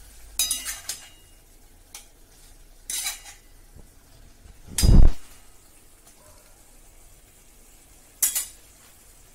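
Metal spatula scraping and clinking against a stainless steel kadai while stirring a fish curry: a few short scrapes, with one loud dull thump about halfway through.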